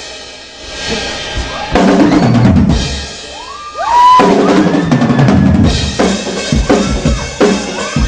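Live drum kit solo: bass drum, snare and cymbal hits. It starts quieter, builds, drops briefly in the middle, then runs into fast, dense fills.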